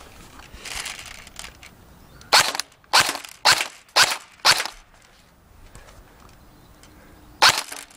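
An airsoft gun firing 0.20 g BBs: five sharp shots in quick succession about half a second apart, then one more sharp crack near the end.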